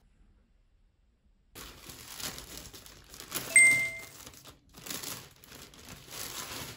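Plastic poly bag crinkling and rustling as it is handled and opened, starting about one and a half seconds in. A short, bright ding sounds about halfway through, the loudest moment.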